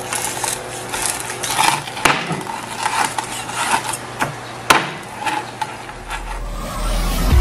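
Crisp, deep-fried pork knuckle skin crackling and crunching as a large knife cuts through it, with sharp knocks of the blade on a wooden cutting board. Near the end a low swelling whoosh comes in.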